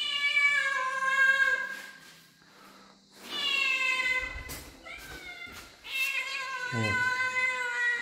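A cat meowing three times, each a long drawn-out meow of about two seconds.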